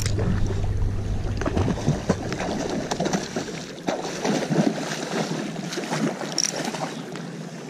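Creek water rushing steadily while a hooked trout is played on a light spinning rod, with scattered clicks and knocks from the rod and reel being handled and splashes from the fish at the surface.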